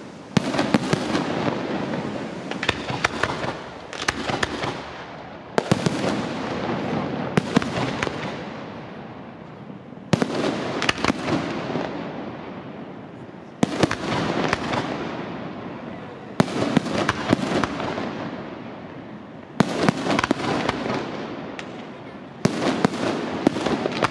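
Aerial firework shells bursting one after another, a sharp bang every second or two, each trailing off in a dense crackle that fades away.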